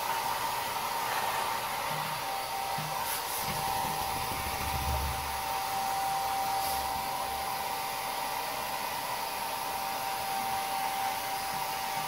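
Handheld hair dryer running steadily, a constant rush of blown air with a steady motor whine; a second, slightly lower whine joins about two seconds in.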